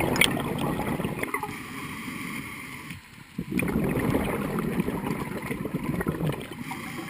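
Scuba diver breathing through a regulator, heard underwater: a stretch of bubbling exhaust noise, a short lull about three seconds in, then another long bubbly exhalation.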